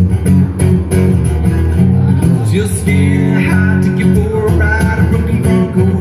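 Country-rock band music with guitars and a steady drum beat; a melodic lead line comes in about halfway through.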